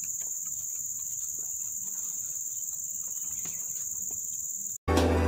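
Steady high-pitched insect chorus shrilling in the background, with a few faint knocks. Near the end it cuts off abruptly and music with a steady beat begins.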